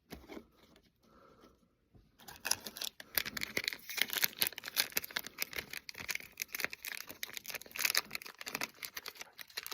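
Foil trading-card pack wrapper crinkling and being torn open, a dense run of crackles that starts about two seconds in.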